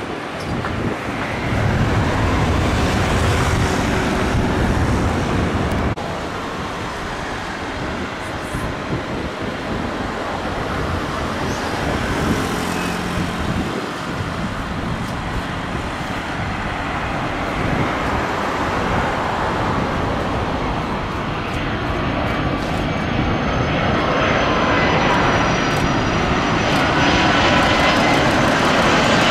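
Twin-engine wide-body jet airliner landing, its engines producing a heavy low rumble as it rolls out after touchdown; this stops abruptly about six seconds in. Then an Airbus A330 approaching to land, its engine noise building toward the end with a steady high whine.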